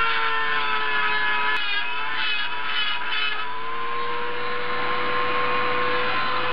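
Dremel rotary tool running at speed with a steady high whine, its bit grinding and smoothing rough casting in the port of a Mazda rotary engine's cast-iron end iron. About halfway through, the grinding rasp stops and the whine rises slightly as the tool spins free off the metal.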